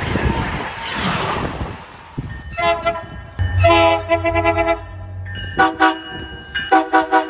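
A loud rushing rumble, then a multi-tone train horn. It sounds a short blast, a long blast of about a second and a half, and then two groups of quick short toots near the end.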